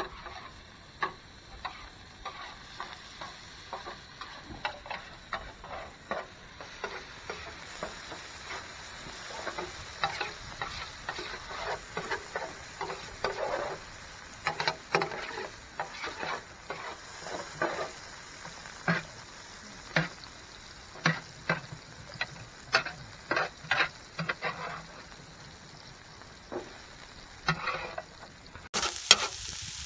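Sliced sweet peppers and onions frying on a metal baking tray over a wood fire, with a soft sizzle. A utensil scrapes and clicks irregularly across the tray as they are stirred.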